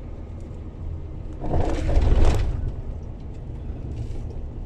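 Steady low drone of a diesel vehicle driving, heard inside the cab, with a strong gust of sandstorm headwind rushing against the cab for about a second about a third of the way in.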